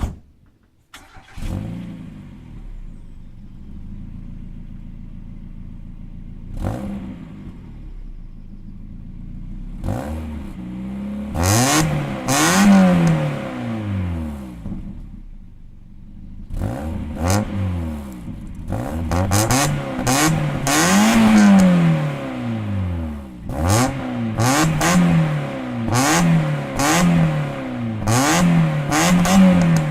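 Stock Mazda MX-5 NA 1.6 litre inline-four with its factory exhaust: a click, then the engine starts about a second in and idles steadily. From about ten seconds in it is revved repeatedly, the pitch rising and falling with each blip of the throttle, in quicker blips near the end.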